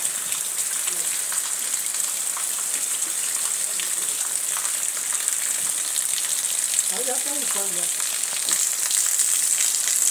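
Heavy rain falling steadily, an even, dense hiss. A faint voice is heard briefly about seven seconds in.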